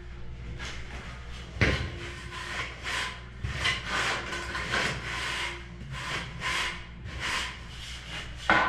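A straightedge being drawn back and forth across damp sand-cement mortar to screed a shower floor bed, making repeated gritty scraping strokes. Two sharper knocks stand out, one about two seconds in and one near the end.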